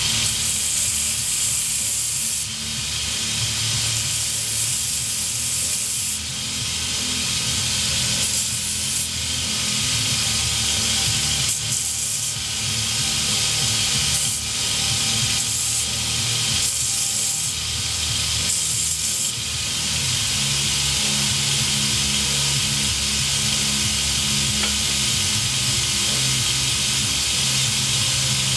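Bench grinder running with a metal part held against the wheel: a steady grinding hiss over the motor's hum. The hiss eases and comes back every few seconds as the part is lifted off and pressed on again.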